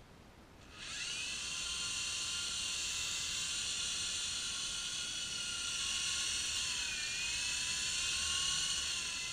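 Small electric RC toy helicopter (U13A) whining as its motor and rotors spin up about a second in, then holding a steady high-pitched whine while hovering. The pitch dips briefly about seven seconds in.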